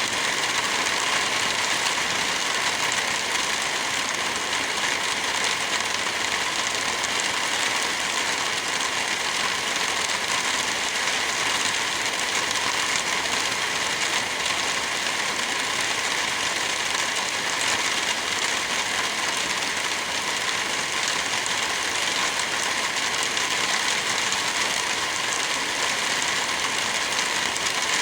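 Heavy rain falling steadily, an even hiss with no change throughout.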